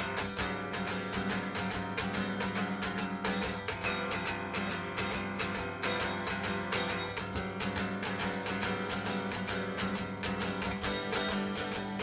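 Guitar strummed in a steady, even rhythm.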